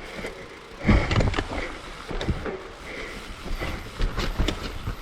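Mountain bike rolling down a dirt trail: tyres on dirt with a low rumble and irregular knocks and rattles from the bike over bumps.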